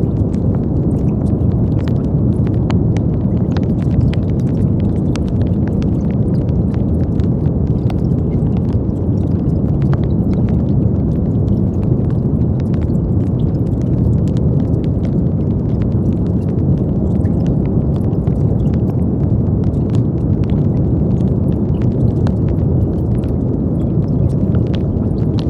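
Brown noise: a steady, deep rushing hiss, heaviest in the low range and unchanging in level, with faint scattered clicks above it.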